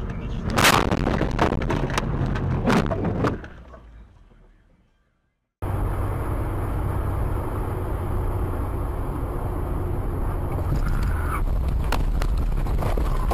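Car collision caught on a dashcam: a loud impact about half a second in, followed by several more knocks and clatter, and then the sound fades out to silence. A few seconds later a steady rumble of road and engine noise from a moving car starts abruptly.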